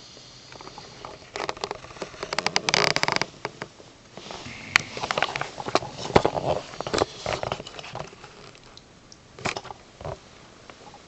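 Sleeping dog snuffling and snorting in irregular bursts, with many sharp wet clicks and crackles.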